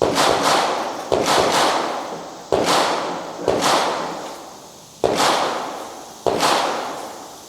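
Gunfire at a shooting range: six sharp shots about a second or so apart, each followed by a long echoing tail.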